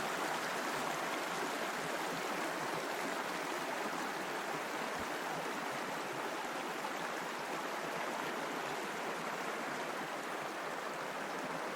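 A mountain creek rushing over rocks, a steady even rush of water.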